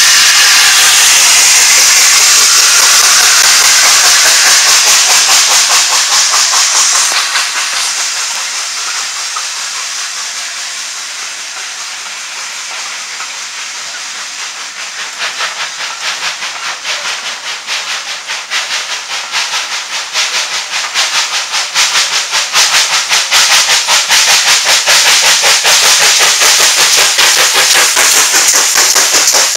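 Steam locomotive Tornado, a Peppercorn A1 Pacific, passing close with a loud hiss of steam. The coaches then roll by with a fast, even clicking of wheels that grows louder. Near the end a GWR pannier tank engine at the rear comes past with the steam hiss strong again.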